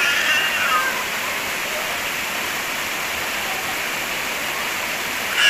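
Waterfall rushing: a steady hiss of falling water. Brief high-pitched sounds break through it in the first second and again at the very end.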